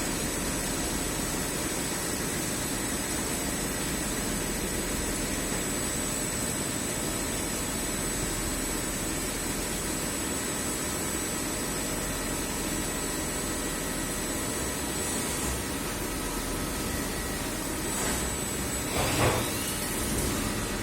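Steady mechanical whirring noise with a thin high whine over it, and a brief louder sound about nineteen seconds in.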